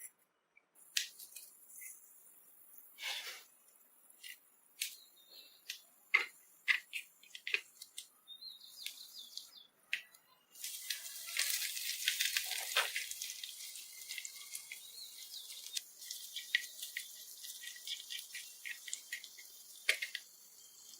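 Miniature cooking: small utensils clicking and tapping, then about halfway through a steady crackling hiss starts and slowly fades as food cooks in a tiny pan.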